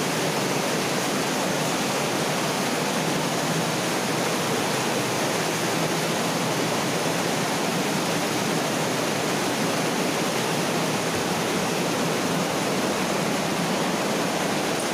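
Water rushing steadily along a rock-walled mine culvert, an even, unbroken noise.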